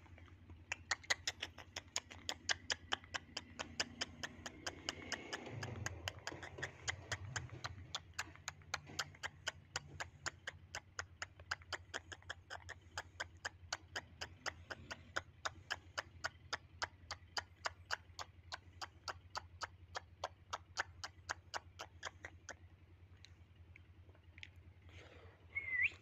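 A rapid, very even ticking, about four clicks a second, which stops a few seconds before the end. Near the end comes a short rising whistle.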